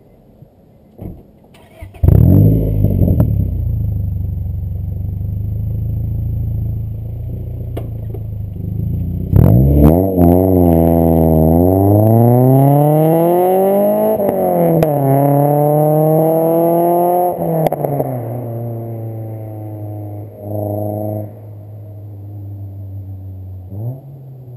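Honda Prelude four-cylinder breathing through a Hytech header and a full 3-inch stainless mandrel-bent exhaust with a Magnaflow high-flow cat, Vibrant bottle resonator and dual-outlet muffler. It starts with a quick rev flare and idles. Then it accelerates hard away, its pitch climbing through the gears with two shifts, and fades as the car drives off.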